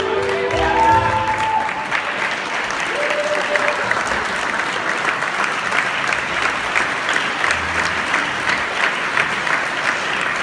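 Audience applauding, a steady crowd of hand claps. The ballroom dance music ends in the first two seconds.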